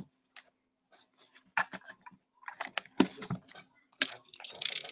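A sealed box of hockey cards being unwrapped by hand: plastic wrap crinkling and cardboard rustling in scattered clicks and crackles, densest near the end.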